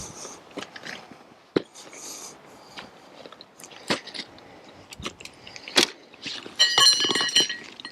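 Irregular crunching steps on loose volcanic rock and gravel, with scattered clicks of stones. Near the end there is a short burst of metallic jangling.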